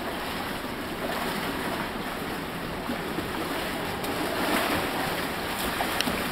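Water splashing and sloshing as a small plastic whitewater kayak is rolled over and back up again and again in a swimming pool, over a steady wash of indoor-pool noise.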